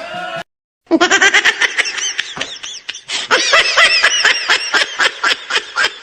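Laughter sound effect: a brief cut to silence, then rapid, high-pitched laughing syllables, several a second.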